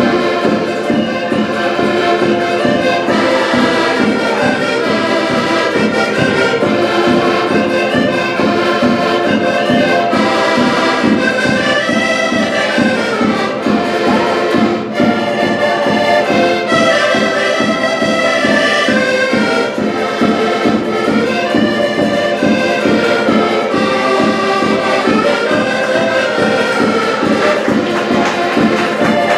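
An ensemble of seven diatonic button accordions (Portuguese concertinas) playing a tune together, with a steady, pulsing bass-and-chord accompaniment under the melody.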